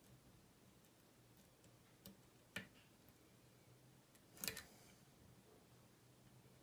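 Faint metal clicks of a lock pick working the pin stack inside a five-pin Goal S pin-tumbler lock: a single click about 2 seconds in, a sharper one half a second later, and a small cluster of clicks about 4.5 seconds in.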